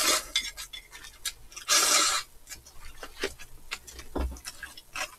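Close-miked eating sounds: noodles slurped off a spoon, one hissy slurp about two seconds in, then chewing and scattered light clicks of chopsticks against bowls.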